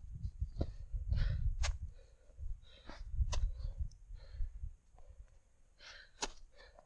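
A hiker breathing hard while descending a steep snow gully, with boot steps giving sharp crunches and scrapes on snow and rock. Wind buffets the microphone as a low rumble that eases after about five seconds.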